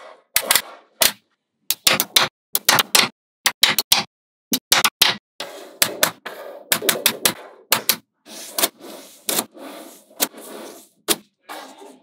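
Small magnetic balls clicking and snapping together: many sharp clicks in quick irregular clusters, with brief rattling between some of them.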